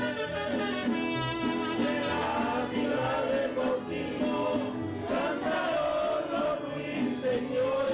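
Music with several voices singing together in a chant, holding long notes.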